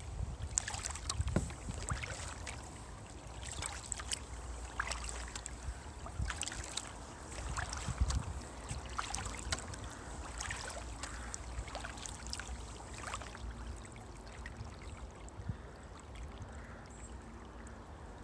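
Kayak paddle strokes in calm canal water: irregular splashes and drips of water off the blades, thinning out near the end, over a low rumble.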